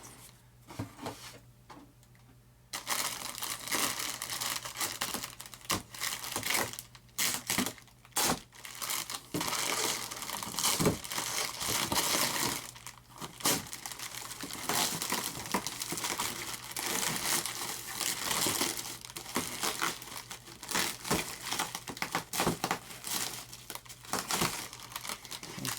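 Plastic packaging wrap crinkling and tearing as a model-aircraft part is unwrapped by hand. It starts about three seconds in and goes on as a dense, irregular crackle.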